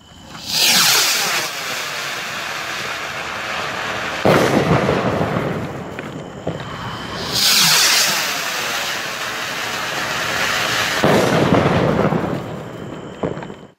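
ATLAS 1700 sky rockets firing, two in turn: each launches with a rushing hiss and bursts a few seconds later with a sharp bang and a long rumbling echo. A few crackles come near the end.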